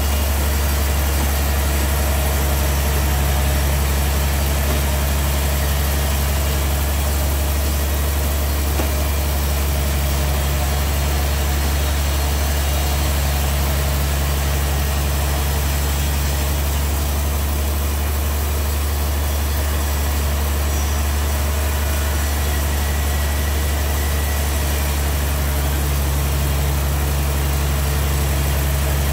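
Large band sawmill running, a steady deep machine hum from its motor and blade that holds level throughout.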